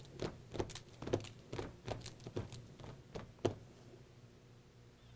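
Step team stepping: stomps and hand claps in a quick, uneven rhythm of about three sharp hits a second, stopping about three and a half seconds in.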